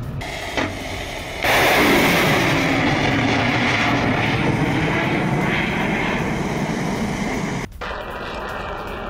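A missile launching: the rocket motor's loud rushing noise starts suddenly about a second and a half in, fades slowly over some six seconds, and cuts off abruptly.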